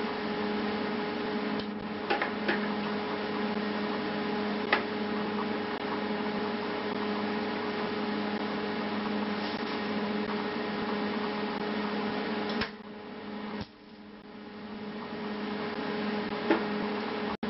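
Steady electrical mains hum from workshop equipment, dropping out briefly about two-thirds through and swelling back, with a few sharp clicks. The sharp snap near the end is a stud-welding dent puller firing a pin onto the dented sheet-metal panel.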